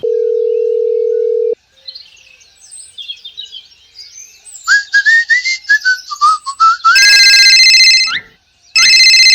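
Sound effects: a steady beep tone that cuts off suddenly, then faint chirps and a whistled run of short notes that slide up and down. Near the end come two loud bursts of a high, rapidly pulsing ring.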